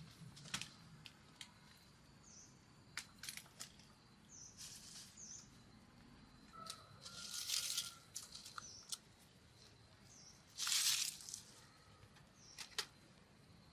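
Scattered sharp snaps and clicks and two brief rustling, tearing bursts, like leaves and stems being handled. Under them run a faint, steady, high insect drone and small bird chirps.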